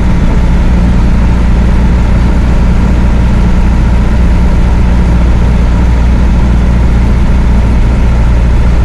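Chevrolet D20 pickup's four-cylinder diesel engine running steadily at cruising speed, a constant low drone with road noise.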